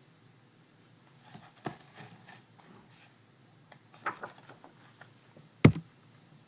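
Handling of a picture book's pages: a few faint rustles and taps of paper, then one sharp tap near the end as the page is turned over.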